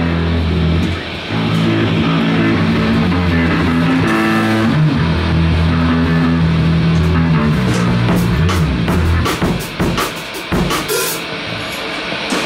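Live rock band playing loud through amplifiers: distorted electric guitar and bass holding heavy chords with drums. From about eight seconds in the chords thin out into scattered drum and cymbal hits.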